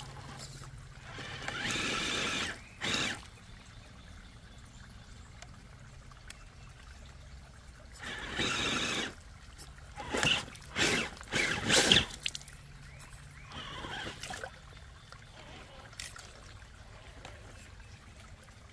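Creek water trickling and pouring around rocks, with two longer bursts of noise from a radio-controlled rock crawler working its way over a log. A cluster of sharp knocks and splashes comes about ten to twelve seconds in.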